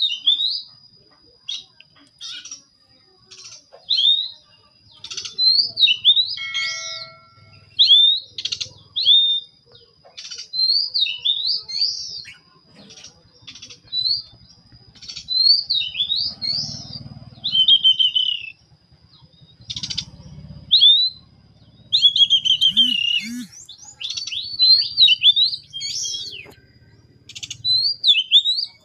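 Caged songbirds chirping in short, sharp whistled notes that dip and rise in pitch, coming about once a second with brief busier runs, over a faint steady high tone.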